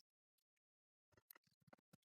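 Near silence, with a few faint small ticks in the second half.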